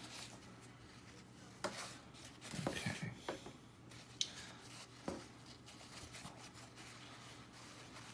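Faint handling sounds of a paper napkin being unwrapped by hand, with a few short rubs and ticks.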